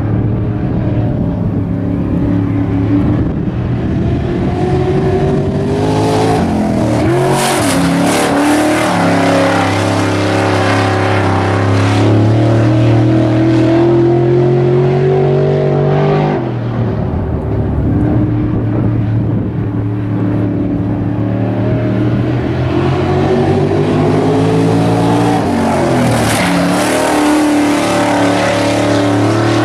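Crate late model dirt race car's V8 engine run hard around the oval. Its pitch climbs steadily along each straight and drops sharply twice as the car slows into the turns and slides through.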